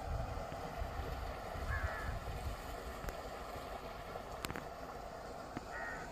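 Outdoor ambience by a pond: wind rumbling on the microphone over a steady hiss, with two short high chirps, one about two seconds in and one near the end, and a single sharp click midway.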